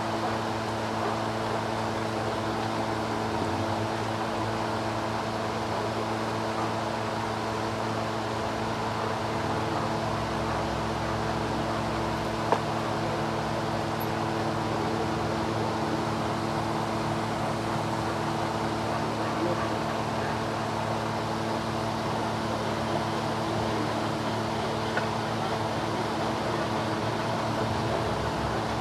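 Toyota Corolla GLI engine idling steadily, a constant hum made of several held tones. A single sharp click sounds about twelve seconds in.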